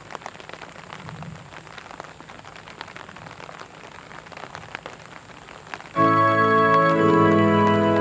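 Rain pattering on umbrellas, an even hiss with faint ticks. About six seconds in, music starts suddenly over the stage loudspeakers with loud held chords.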